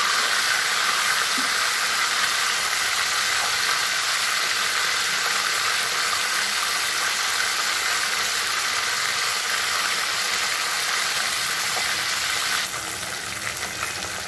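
Katla fish heads sizzling steadily as they fry in hot mustard oil in a kadai. The hiss drops suddenly and becomes quieter near the end.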